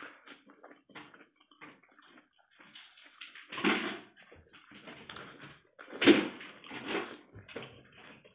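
Close-up wet mouth sounds of eating saucy food: sucking, slurping and chewing in irregular bursts, with the loudest slurps about three and a half and six seconds in.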